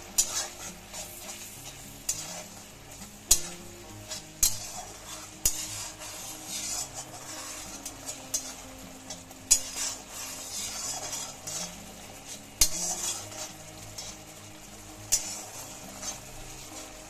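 A steel ladle stirs a spiced masala frying in a black iron kadai. The paste sizzles in the oil while the ladle scrapes around the pan, with about eight sharp clacks of metal on metal. These are the spice powders being fried into the masala, before the water goes in.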